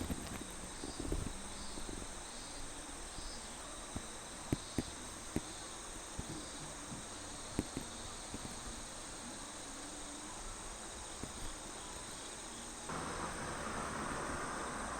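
Insects, crickets among them, chirping steadily in the background, with repeating pulsed calls in the first few seconds and a few sharp clicks in the middle. About thirteen seconds in the background hiss gets louder and fuller.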